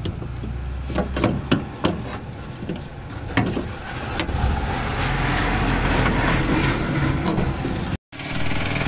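Several sharp clicks and knocks in the first few seconds, then a steady engine-like drone with a low hum. The sound cuts out for a moment near the end.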